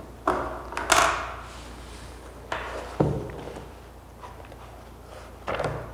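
Several separate knocks and thuds, the loudest about a second in and another sharp one about three seconds in.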